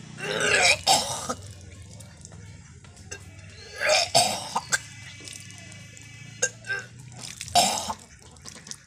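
A person retching and gagging in three loud heaves: one just after the start, one near the middle and one near the end.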